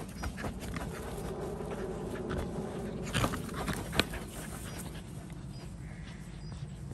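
Staffordshire bull terrier panting as it runs and pushes a large inflatable ball across grass, with two sharp knocks about three and four seconds in.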